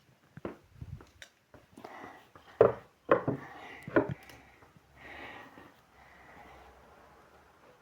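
Small objects being picked up and set down on a dressing table: several sharp knocks and clacks, the loudest three in the middle, between stretches of rustling and sliding as things are moved around.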